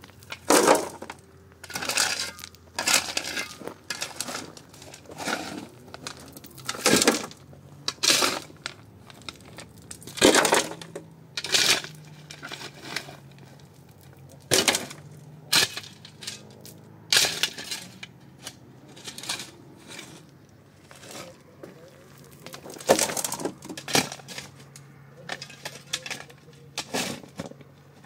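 An irregular series of sharp knocks or cracks, about twenty of them, roughly one every second or so and some louder than others, over a faint low hum.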